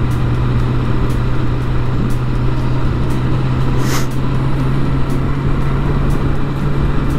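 Sport motorcycle engine holding a steady drone while cruising at constant speed, with wind and road noise rushing over it. A brief high hiss comes about four seconds in.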